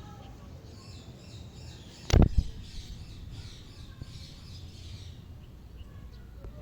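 One sharp, loud thump about two seconds in, over faint high chirping repeated for a few seconds.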